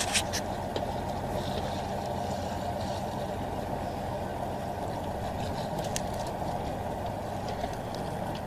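Fishing boat's engine running steadily, with water and wind noise, and a few light clicks.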